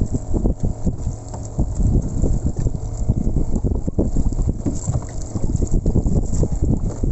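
Wind buffeting the microphone, a loud uneven rumble that gusts up and down, with irregular small knocks.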